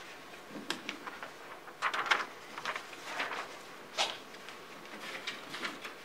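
Paper rustling as a book's pages are handled and turned, in short irregular rustles and soft clicks, the busiest around two seconds in with a sharper one near four seconds.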